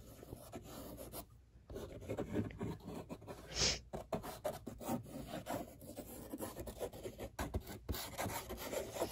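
Glue bottle nozzle rubbing and scraping along a board as white craft glue is squeezed out in a line: soft, irregular scratchy sounds with small clicks, and a brief hiss about three and a half seconds in.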